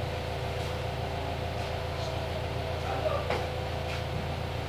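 A steady low mechanical hum with a faint steady whine over it, and a light knock about three seconds in.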